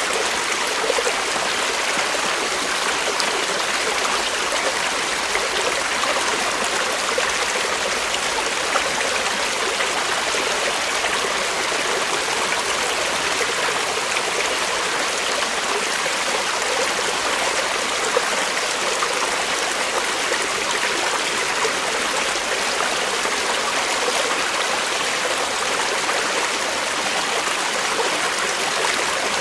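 Creek water flowing over stones: a steady rush with fine trickling and splashing detail, holding even throughout.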